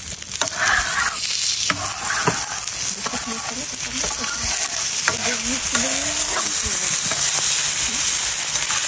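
Raw Kobe A5 wagyu steaks sizzling as they are laid one by one on a hot steel griddle plate, the sizzle building as more meat goes down, with a few soft knocks as pieces are set on the plate.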